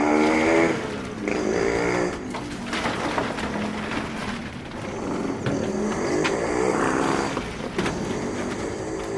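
A motor engine whose pitch rises and falls in several swells, with a few light knocks in between.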